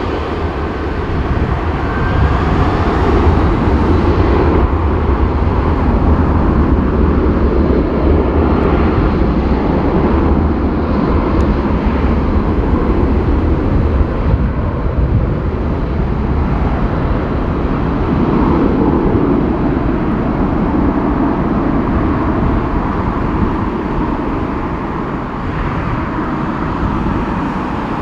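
Boeing 747-400 freighter's four jet engines running at high thrust, a continuous heavy roar with deep rumble, building over the first few seconds as the jumbo begins its takeoff roll.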